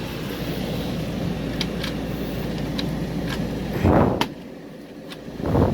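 Steady hum of an air conditioner with a few light clicks. About four seconds in, a swell of noise ends in a sharp latch click as a cabinet door is shut, and the hum is quieter after it. A second swell of handling noise comes near the end.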